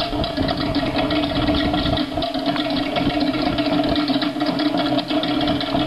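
Fast, even Tahitian drumming that accompanies the Ori Tahiti hip-shaking dance, a quick steady run of drum strokes.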